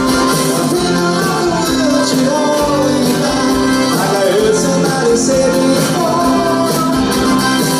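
Live pop-rock band playing, with a man singing lead over acoustic and electric guitars, bass, keyboards and drums.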